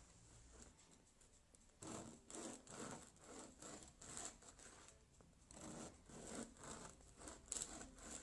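A knife sawing through a crusty whole-wheat baguette on a wooden cutting board, making faint rasping strokes. The strokes come in quick runs, about two a second, starting about two seconds in.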